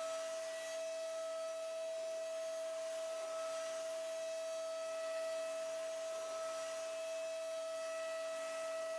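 Datron M8Cube high-speed milling spindle running at a constant speed while milling, a steady whine over a faint hiss.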